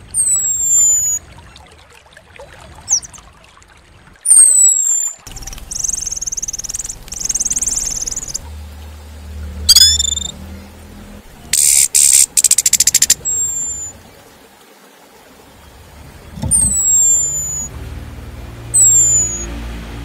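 Recorded songbird calls: sharp, very high whistles sliding downward, five times, with a buzzy chatter a few seconds in and a fast rattling trill around the middle, over a low steady hum.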